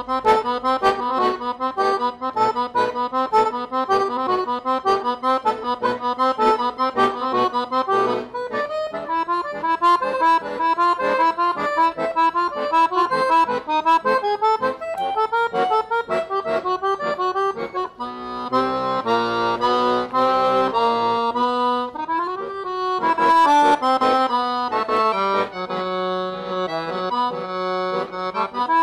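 Accordion music: a brisk tune of quick repeated notes, moving into running passages and then longer held chords near the end.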